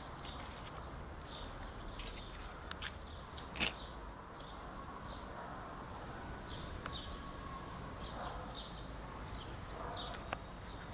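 Small birds chirping on and off, with a few sharp clicks over a steady background hiss; the loudest click comes about three and a half seconds in.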